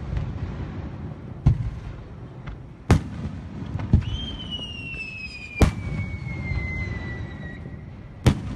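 Aerial firework shells bursting overhead, about six sharp bangs one to two seconds apart. From about halfway through, a long whistle slowly falls in pitch, like a whistling firework.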